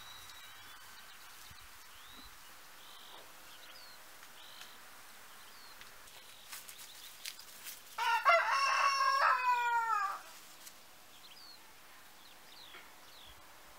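A rooster crows once, a single call of about two seconds starting a little past halfway, its pitch falling at the end. Faint short bird chirps sound around it.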